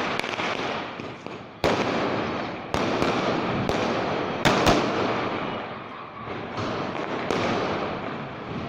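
Firecrackers going off: a dense, continuous crackle broken by sharp bangs, about eight of them, each followed by the crackle slowly dying down.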